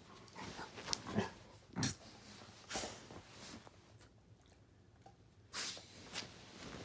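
A wolfdog making short, irregular huffing noises, with a lull of about a second and a half past the middle.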